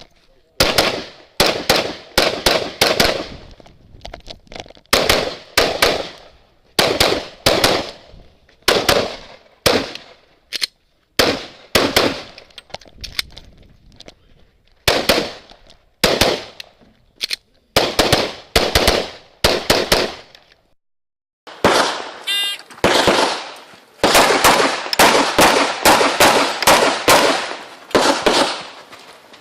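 Pistol shots fired during a timed practical-shooting stage course of fire, mostly in quick pairs with short pauses between them. After a longer pause about 21 seconds in, a fast run of shots follows.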